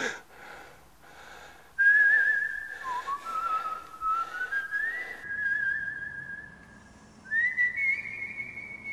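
A slow tune whistled as single held notes, each with a slight waver, stepping up and down between a few pitches. It starts about two seconds in and breaks off briefly near the end before going on.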